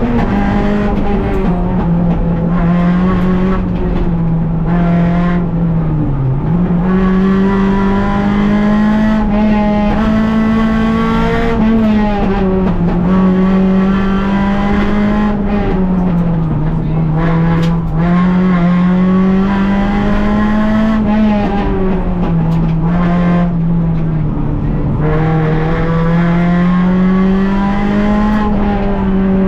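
Rally car's engine heard from inside the cockpit at stage pace, loud and continuous, its pitch climbing through each gear and dropping sharply at every shift or lift every few seconds.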